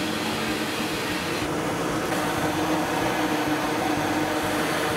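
Drill press and a dust-extraction vacuum running steadily while a Forstner bit bores a shallow hole in an MDF insert, the vacuum hose drawing air and chips at the bit.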